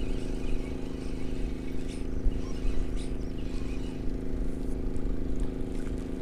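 An engine running steadily at one unchanging pitch.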